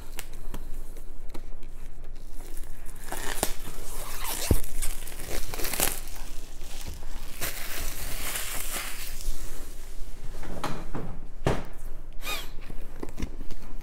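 Packaging on a boxed board-game expansion being torn open and handled: uneven tearing, crinkling and rustling, with a sharp tap about four and a half seconds in.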